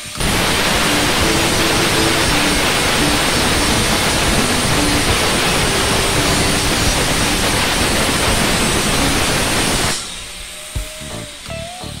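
Angle grinder grinding down a welded seam on steel sheet: a loud, steady rushing hiss that starts suddenly and cuts off about ten seconds in, with background music underneath and alone at the end.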